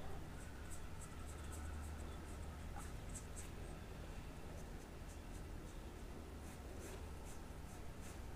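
Paintbrush strokes on paper: a run of short, soft, scratchy swishes as brown paint is brushed into a drawn square, thinning out for a couple of seconds midway while the brush is reloaded from the paint jar, then starting again near the end. A faint steady low hum lies underneath.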